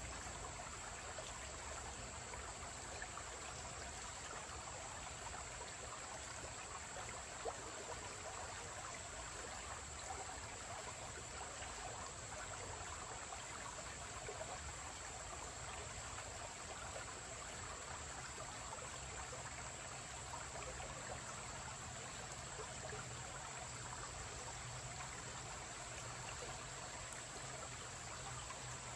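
Shallow creek trickling over rocks, a steady, even babble of running water. A single brief click sounds about seven and a half seconds in.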